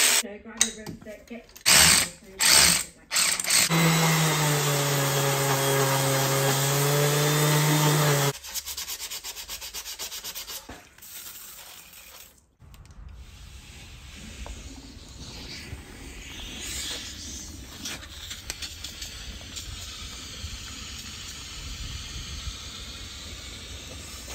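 Cordless power tool whirring in short bursts at the water pump bolts, then running steadily for about four seconds as a wire brush scrubs grime off the engine block face. The second half is much quieter: water from a garden hose flushing through the radiator and splashing out.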